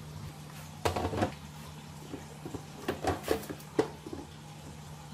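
Hollow knocks and clatter of PVC pipes and a wooden board being set down and shifted on a wooden table: a short cluster about a second in, then several sharp knocks between about three and four seconds in, over a steady low hum.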